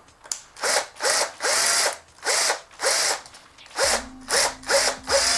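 Cordless drill with a 10 mm bit spinning in reverse through the bores of two 3D-printed plastic clamp blocks, clearing them out to take a 10 mm guide rod. The drill is run in many short bursts, each rising in pitch as it spins up, then in one longer run near the end.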